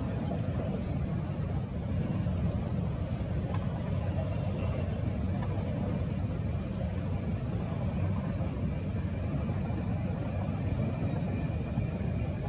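Steady, even rumble of a Boeing 737 airliner's jet engines as the plane flies away at low altitude on its landing approach, with a faint thin high whine above it.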